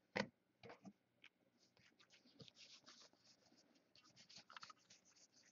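Faint scratchy rustling of football trading cards being slid across one another by hand as a stack is flipped through, a run of short soft scrapes with a sharper tick just after the start.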